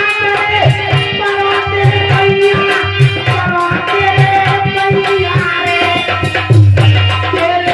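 Live Indian devotional folk song: a harmonium holds steady chords while a hand drum beats a regular rhythm and a woman sings, her line dipping in pitch near the end.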